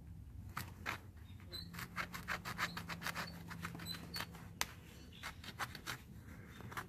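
Hoku knife's stone flake blade sawing through thick tanned deer hide with the hair on: a faint run of irregular small clicks and scratchy snips, thickest in the middle stretch.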